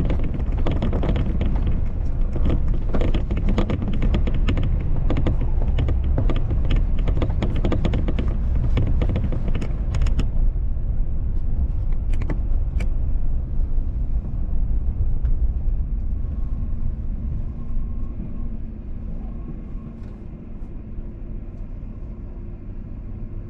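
Car driving on city streets, heard from inside the cabin: road and engine rumble with a busy rattling, crackling tyre noise for about the first ten seconds, then a quieter steady rumble as the car slows and comes to a stop.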